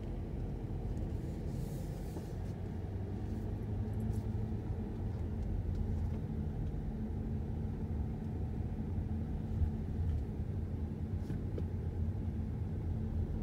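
Steady low rumble of a car's engine and road noise, heard from inside the cabin while driving slowly along a street.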